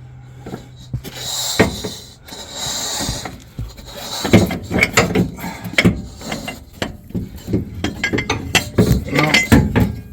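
Hand tools and metal parts clinking and knocking in a quick, irregular series, thickest from about four seconds in, as air bag mounting hardware is worked into place.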